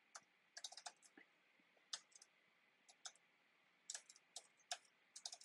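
Faint typing on a computer keyboard: irregular key clicks, some in quick runs, as an email address is entered.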